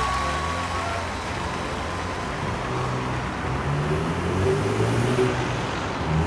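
Street traffic: a car driving past on the road, a steady hiss of tyres and engine. The tail of live worship-band music fades out in the first second.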